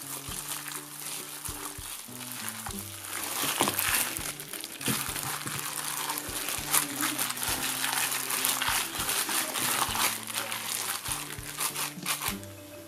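Wet squelching and crinkling as a plastic-gloved hand kneads pork pieces into a thick starch and egg-white batter, over light background music. The squelching grows louder about three seconds in and eases off near the end.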